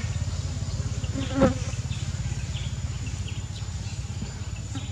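A steady low buzzing drone with a fast, even pulse, and one brief, louder pitched sound about a second and a half in.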